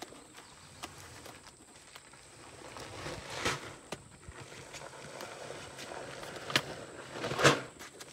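Plastic bag of feed corn crinkling and rustling as a hand tugs at its sewn top strip to open it, with louder crinkles about three and a half and seven and a half seconds in.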